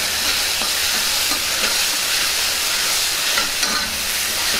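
Onions, green chillies and tomato paste sizzling in hot oil in a hammered metal kadai with a steady hiss, stirred with a metal spatula that scrapes the pan now and then.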